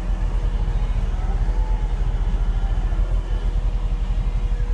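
2006 Volvo G930 motor grader's diesel engine running steadily, with a fast, even low throb.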